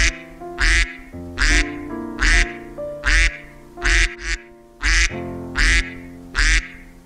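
Duck quacking loudly over and over, in an even rhythm of a little more than one quack a second, over light background music.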